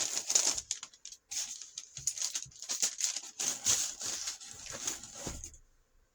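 A bag rustling and crinkling in irregular bursts as a yarn skein is pushed back into it, stopping abruptly about five and a half seconds in.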